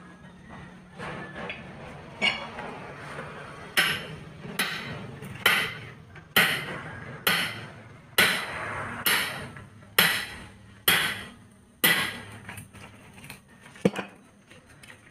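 Metal hammer blows on a steel tire iron, about one a second and ringing, as the iron is driven in between a ten-wheeler truck tire and its steel rim during a manual tire change; a single sharper clank comes near the end.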